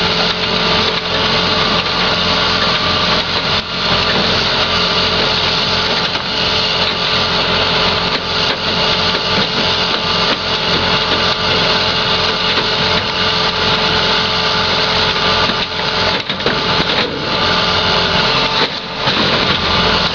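Heavy machinery engines running steadily as a loader carries a junked pickup truck to a portable car crusher, with a few knocks in the last few seconds.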